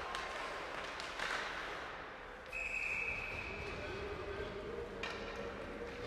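Ice hockey rink game sounds: sharp knocks of sticks and puck against a background of voices, with a referee's whistle blown once, about two and a half seconds in, as a single steady shrill note.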